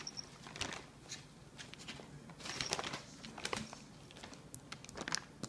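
Thin plastic bag crinkling in irregular bursts of crackles as a cat shifts and paws at it from inside.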